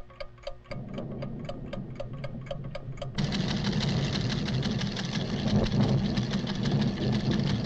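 Rapid, even ticking of a seismograph's recording mechanism, about five ticks a second. About a second in a low rumble starts under it, and about three seconds in it swells into a loud earth-tremor rumble that drowns out the ticking, the sign of the volcano reawakening.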